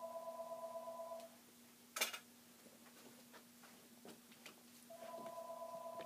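Telephone ringing: an electronic two-tone ring that stops about a second in and starts again about four seconds later. Under it runs a low steady hum, and a single click sounds between the rings.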